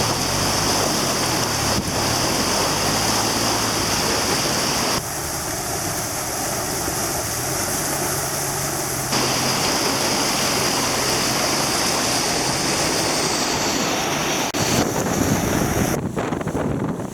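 Swollen, flooding river water rushing loudly, with wind buffeting the microphone. The sound is a steady roar that drops abruptly about five seconds in and returns about four seconds later.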